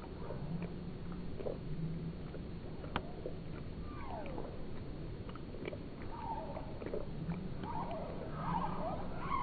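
A cat lapping milk from a bowl, slowed five times, so each lap becomes a low, drawn-out slurp repeating about once a second, with scattered clicks. From about six seconds in, warbling, sliding tones join in.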